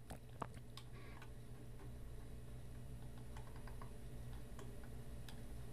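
Faint, scattered clicks of a computer mouse over a low steady hum.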